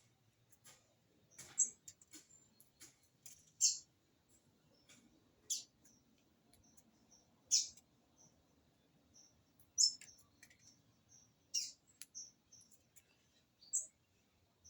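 Green-winged saltator (trinca-ferro) giving short, sharp high-pitched call notes at irregular intervals, about one every one to two seconds, rather than full song.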